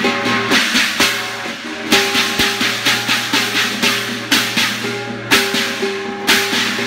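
Chinese percussion accompanying a qilin dance: drum, gong and cymbals playing a steady beat of about three strokes a second, with a heavier accent about once a second, over the sustained ring of the gong and cymbals.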